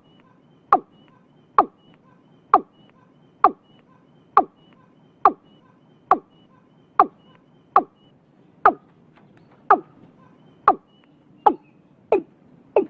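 Watercock calling: a steady series of short, sharp notes, each falling quickly in pitch, a little more than one a second and coming slightly faster near the end.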